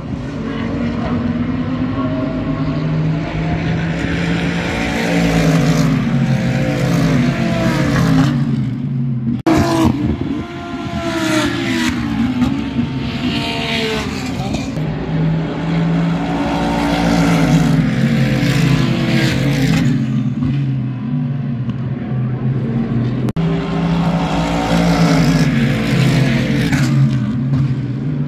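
Race car engines at full throttle as cars pass one after another, each climbing in pitch through a gear and dropping back at the upshift, over and over.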